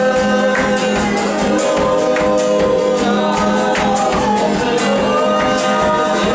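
Live worship music: a woman singing held notes over a steadily strummed acoustic guitar.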